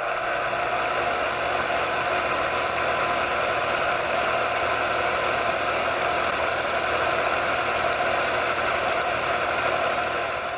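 Film projector running steadily, its reel mechanism whirring without a break.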